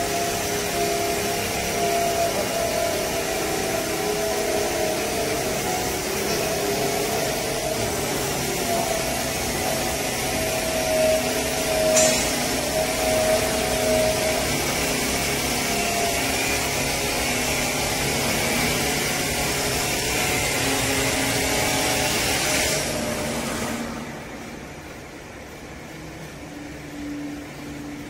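Vertical hydraulic baler's motor and pump running steadily with a whine while the bale is held under compression, then shutting off near the end.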